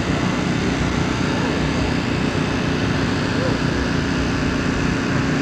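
Steady, unbroken drone of NASCAR stock car V8 engines running laps.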